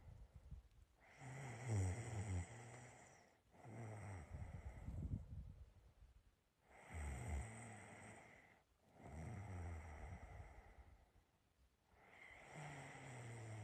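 A person snoring in their sleep: a low, rattling snore on each of about five slow breaths, each a couple of seconds long with brief pauses between.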